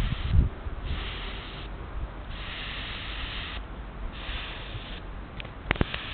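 Twin-nozzle garden sprayer wand hissing as it sprays a fine mist, in spurts of about a second, three times, with short pauses between. A few sharp clicks come near the end.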